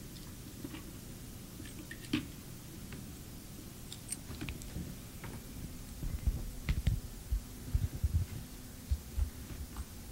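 Quiet room tone with a few faint clicks, then from about six seconds in an irregular run of soft low thumps, like handling noise while equipment is set up.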